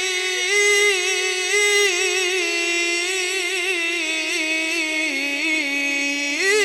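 A man's solo voice in melodic Quran recitation (tilawat), amplified through a microphone. He holds one long unbroken note decorated with quick wavering ornaments. The pitch sinks step by step and climbs again near the end.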